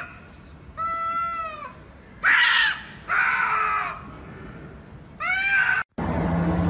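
Two domestic cats yowling at each other in a standoff: four drawn-out, wavering wails, with one harsher screech about two seconds in. The sound cuts off abruptly near the end.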